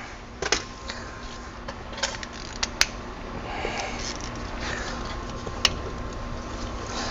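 Irregular sharp metallic clicks and clinks of hand tools working on a truck's front wheel hub, five or so spread over a few seconds, over a faint steady hum.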